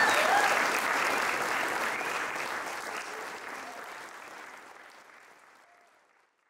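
A crowd clapping and cheering, with a few voices calling out at first, fading out steadily until it is gone about six seconds in.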